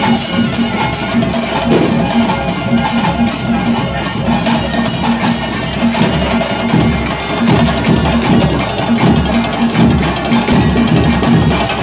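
Traditional percussion music with drums playing a steady beat.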